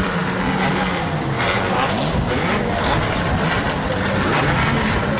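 Engines of several classic saloon stock cars running together as they drive round a shale oval, their pitches wavering up and down.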